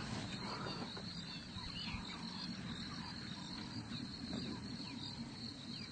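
Insects chirping in a steady high-pitched chorus, over a low background rumble, with a few faint short chirps on top.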